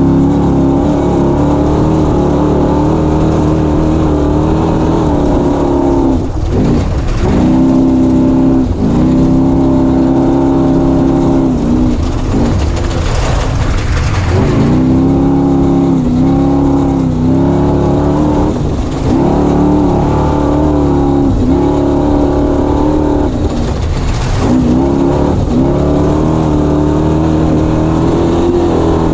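Off-road race vehicle's engine running hard at high revs, dropping briefly and picking back up several times as the throttle is eased and reapplied.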